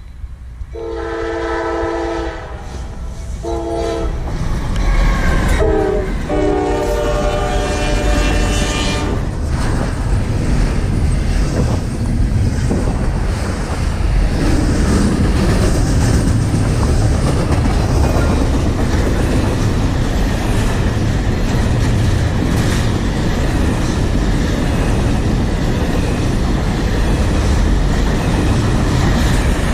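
Approaching intermodal freight train sounding its air horn in three blasts: a long one, a short one, then a longer one. It then passes close by with a loud, steady rumble and clickety-clack of wheels on rail for the rest of the time.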